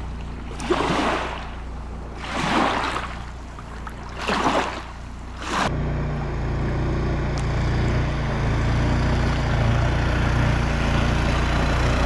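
Rushing noise of wind and water, surging in swells about every two seconds; about six seconds in it changes abruptly to a steady hiss over a low hum.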